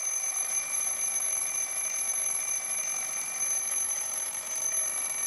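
Alarm clock ringing steadily, a continuous high ring.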